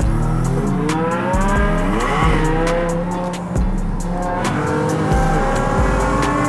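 BMW M5's V10 engine revving hard under acceleration, heard from inside the cabin, its pitch climbing from about a second in and then settling.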